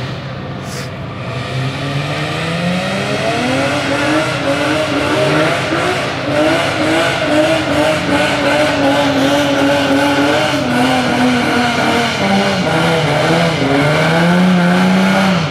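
A car engine revving hard with tire squeal, a car spinning its tires in a burnout. The revs climb over the first few seconds, waver up and down while held high, then drop away suddenly at the end.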